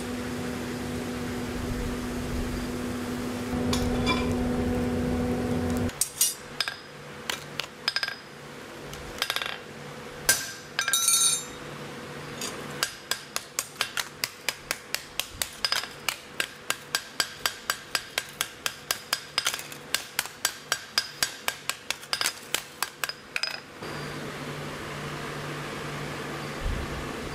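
A steady machine hum, then a hammer striking a red-hot steel kitchen-knife blade on an anvil from about six seconds in. A few irregular blows come first, then a steady run of about three strikes a second for some ten seconds, each with a short metallic ring. The hum returns near the end.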